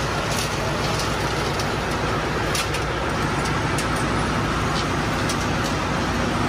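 Steady drone of running machinery in a ship's engine room, with a low hum, and a few faint light clicks over it.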